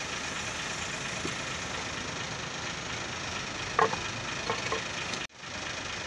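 Steady workshop background noise, with a few light metallic clinks of a hand tool against the steel body of a large hydraulic bottle jack about four seconds in. The sound cuts out abruptly for a moment near the end.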